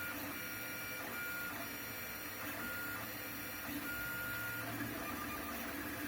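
Lulzbot TAZ 6 3D printer running, its stepper motors giving short whining tones of varying length as the axes move in stop-start steps over a steady mechanical hum.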